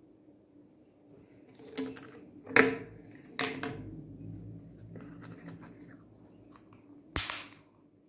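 Handling noise from a string light's plastic remote and controller box on a table: a few sharp clicks and knocks. The loudest comes about two and a half seconds in, and another comes near the end.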